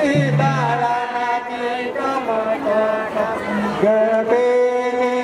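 Chanted singing in long held notes that step from pitch to pitch, with a steady low drone under the first second.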